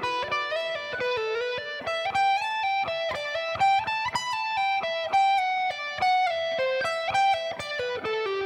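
Solo electric guitar playing a single-note lead lick slowly, note by note: an E minor pentatonic line sliding up through positions on the top two strings, ending in a hammer-on phrase at the 12th fret.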